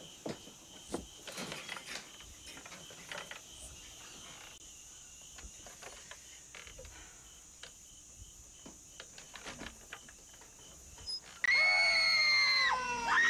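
Crickets chirping steadily in the night, with a few soft footsteps and knocks. About eleven and a half seconds in, a woman screams loudly and keeps screaming, her pitch wavering and falling.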